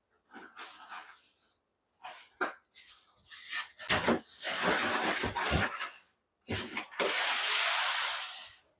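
Flattened corrugated cardboard boxes being handled and packed into a large cardboard box: rustling, scraping and a few knocks as the pieces are pushed in. A steadier rasping rush of about two seconds comes near the end.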